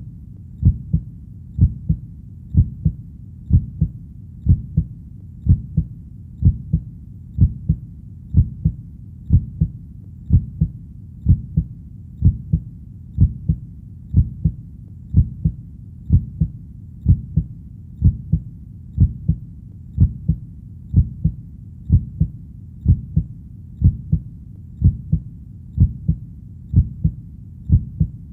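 Heartbeat sound: a steady double-beat (lub-dub) of low thuds, repeating about once a second, roughly 65 beats a minute.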